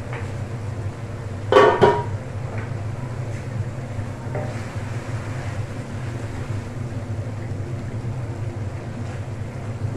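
Steady low rumble of a gas stove burner under a steaming wok of vegetables, with a loud clatter of cookware, two quick knocks that ring briefly, about a second and a half in.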